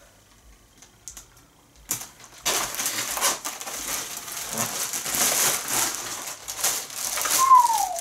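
Plastic poly mailer bag crinkling and rustling as it is pulled open and clear plastic-bagged clothes are drawn out of it. This starts about two and a half seconds in, after a quiet start with a few light clicks, and there is a short falling squeak near the end.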